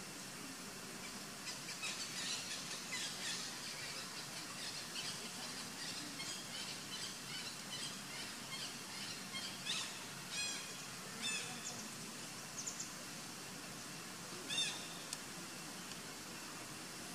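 Short, high-pitched animal chirps and squeaks in quick runs over a steady faint hiss, with a few louder separate calls later on, the loudest a little before the end.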